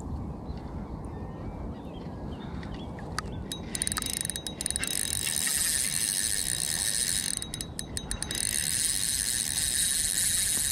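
Fixed-spool spinning reel's drag buzzing as a hooked sea trout takes line. It starts about four seconds in, runs for a few seconds, breaks off briefly with a few clicks, then runs again. A low rumble of wind on the microphone lies under it.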